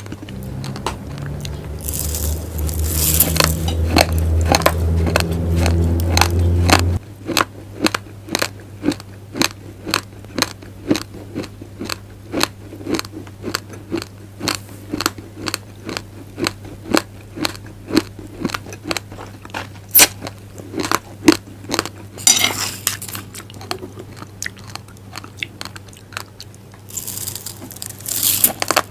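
Raw glutinous rice grains being crunched and chewed close to the microphone, in sharp cracks about two a second, with a few denser gritty rushes of crunching. A low steady hum runs under the first quarter and cuts off suddenly.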